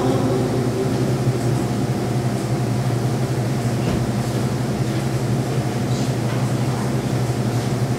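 A steady low hum with faint background noise, after the last sung and guitar notes die away in the first moment.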